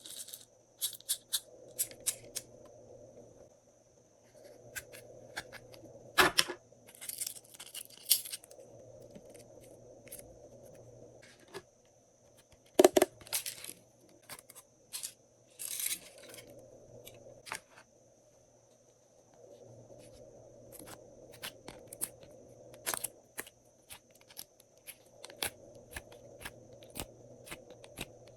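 Glossy slime being worked by hand while add-ins are mixed in, giving irregular sharp clicks, crackles and pops, a few of them much louder, over a faint steady background hum.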